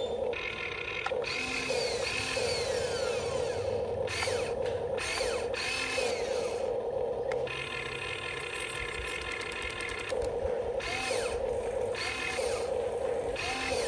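Huina 1592 RC excavator's electric gear motors running in short stop-start bursts as the boom, arm and bucket move to dig, with a quieter stretch in the middle.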